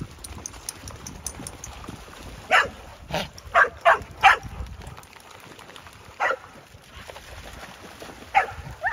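Dogs barking during play: a quick run of about five short barks a few seconds in, then a single bark, and two more near the end.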